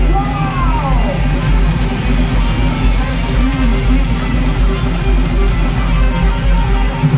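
Live band playing loud rock with electric guitars and drums, with a sliding note falling in pitch in the first second. The sound is heavy in the bass and comes through a phone's microphone in the crowd.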